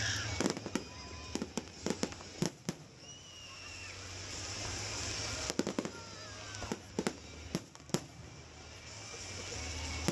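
Fireworks display: about a dozen sharp bangs of aerial shells bursting, in quick clusters of two to four, with a hissing noise that swells between the clusters.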